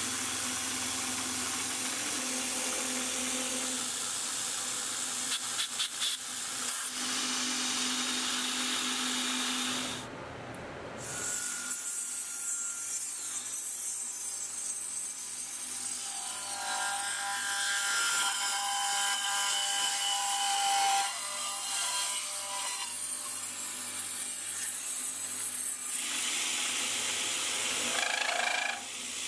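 Small CNC milling machine, its spindle driven by a DMM DYN4 AC servo motor, milling aluminum with an end mill: a steady cutting noise in a string of short clips, changing abruptly about a third of the way in and near the end. In the middle clip the cut rings with a high whine.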